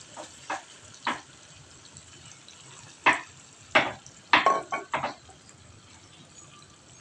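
Tuna frying in oil in a pan, sizzling in a series of short, sharp spurts, the loudest bunched together between about three and five seconds in.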